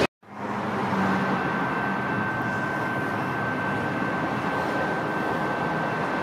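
Steady vehicle rumble with a faint, high, steady whine through it; the sound drops out briefly at the very start.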